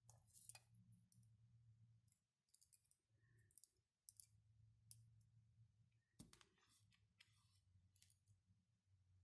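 Small, irregular plastic clicks and taps as the 3D-printed wheels of a mechanical counter are handled, turned and fitted together, with the loudest click about half a second in and another sharp one about six seconds in.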